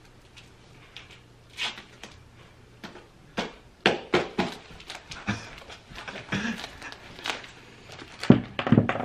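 Duct tape being pulled off the roll in short, irregular rips as it is wound around a person's body.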